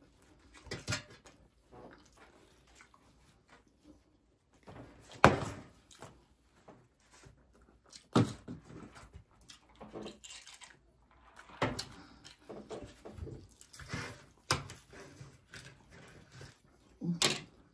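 Close-miked eating sounds of people wolfing down White Castle sliders in a speed-eating race. Irregular short bursts of chewing, smacking and food handling come a second or two apart, the sharpest about five seconds in.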